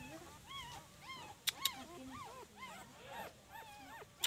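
Young puppies whimpering: many short, high whines that rise and fall and overlap one another, with two sharp clicks about a second and a half in.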